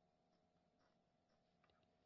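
Near silence: room tone with a faint steady hum and a few faint ticks near the end.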